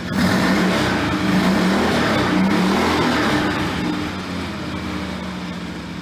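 Motor vehicle engine revving, its pitch rising and falling, under a wide rushing noise, easing off toward the end.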